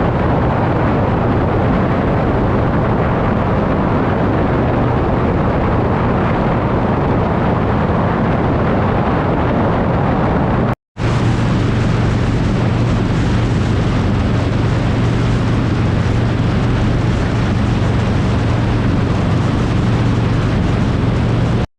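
Harley-Davidson touring motorcycle's V-twin engine running steadily at highway speed, under a loud rush of wind on the microphone. The sound cuts out for an instant about eleven seconds in.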